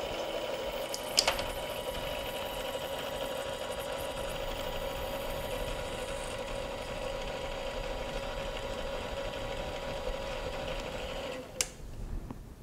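Mini lathe motor and spindle running with a steady whine, with a short knock about a second in. Near the end the motor is switched off with a click and the whine stops.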